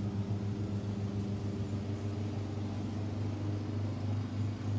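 Steady low drone of a running motor, holding a constant pitch.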